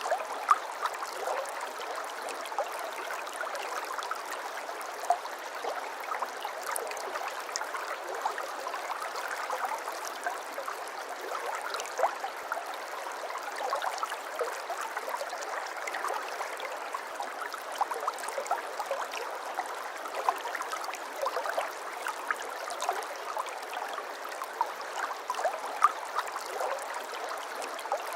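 Water flowing in a small stream, babbling steadily with many small splashes and trickles. The sound is thin, with no low rumble.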